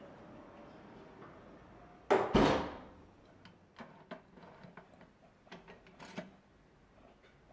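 A portable kerosene heater being worked by hand: one loud scraping clatter about two seconds in, fading over most of a second, then a string of small clicks and rattles as its wick-adjusting knob is turned.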